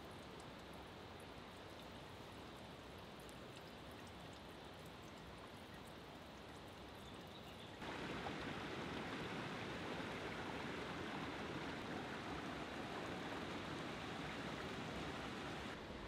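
Stream water running, a steady rush; about halfway through it cuts abruptly to a louder, fuller rush.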